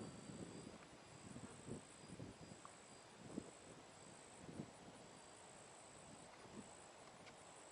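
Near silence: a faint, steady high insect trill with a few soft low thumps.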